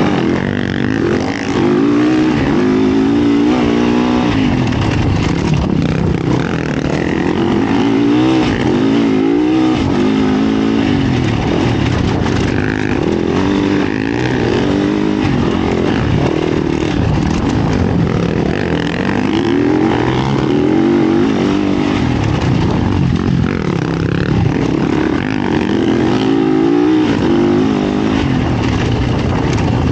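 Yamaha YZ450F dirt bike's single-cylinder four-stroke engine under way on the trail, revving hard. The engine note climbs and falls over and over with the throttle.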